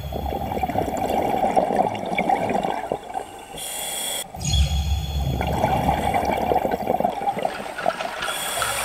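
Scuba diver's breathing through a regulator underwater: a long exhalation of bubbling, a short hissing inhale about three and a half seconds in, then a second long exhalation, and another hissing inhale near the end.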